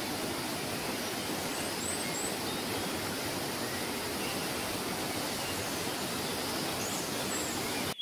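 Steady rushing roar of a waterfall, with a few faint high bird chirps over it; it cuts off suddenly at the end.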